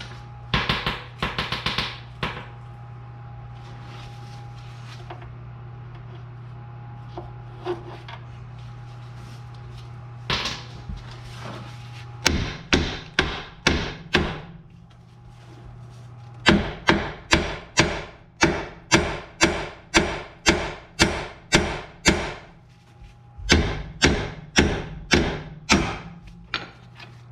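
Hammer blows on the steel steering parts of a tie rod job, in steady runs of sharp strikes about one and a half a second, over a steady low hum.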